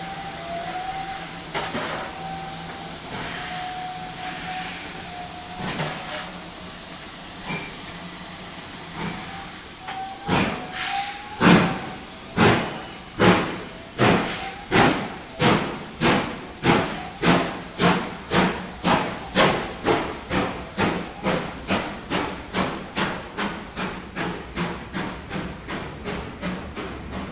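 Steam locomotive pulling away: steam hissing with a faint wavering whistling tone, then about ten seconds in the exhaust chuffs begin, slow and loud at first and quickening steadily from about one beat a second to about two, a little fainter toward the end.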